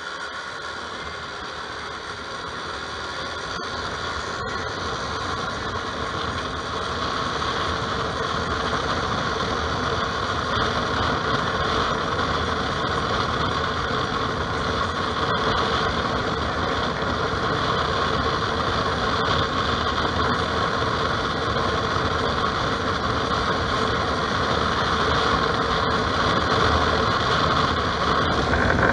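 Riding noise from a Bumoto Regnum on the move: the engine and road noise mixed with wind on the mic. It grows louder over the first several seconds, then stays steady.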